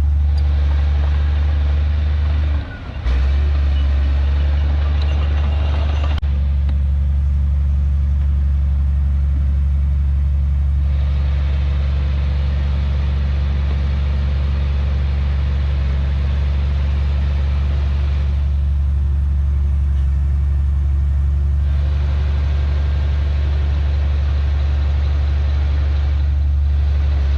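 Heavy diesel earthmoving machinery running steadily with a deep, constant drone. It dips briefly just under three seconds in.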